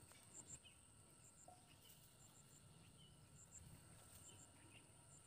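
Near silence with faint insects chirping: short, high chirps, mostly in pairs, about once a second.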